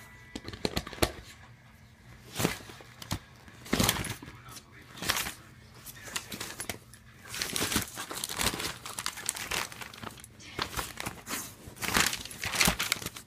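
Paper magazine pages rustling and crinkling in irregular bursts, one to several a second, some louder than others.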